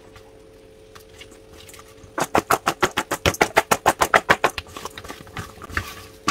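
Spice-coated breadfruit slices tossed by hand in a stainless-steel mixing bowl. About two seconds in comes a fast, even clatter of roughly eight knocks a second that lasts a couple of seconds, then a few scattered knocks, over a faint steady hum.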